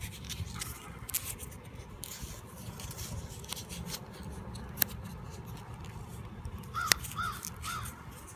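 Cardstock being flipped over and folded by hand, rustling with a couple of sharp snaps. Near the end, three short calls in a row, like a bird's.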